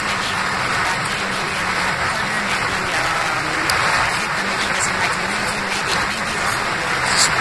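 Steady rushing noise of strong wind on the microphone, with a woman's voice faintly underneath it.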